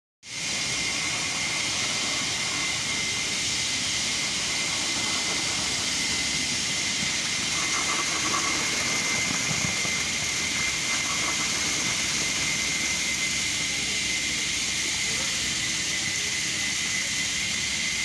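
Concrete pump running while concrete is pumped through the delivery line: steady machine noise with a strong high hiss and a steady high whine, starting abruptly.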